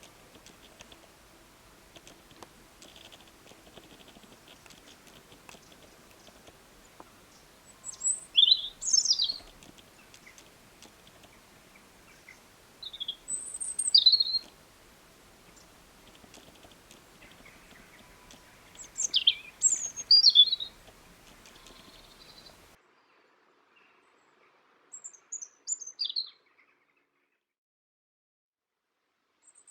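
A songbird singing short phrases of high, quickly sweeping notes, four phrases several seconds apart, over faint background hiss that cuts out about two-thirds of the way through.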